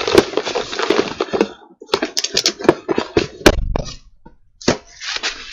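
Rustling and crackling handling noise with many sharp clicks and taps, as a wig grip band and wigs are handled close to the microphones. It stops for a moment about four seconds in, then starts again.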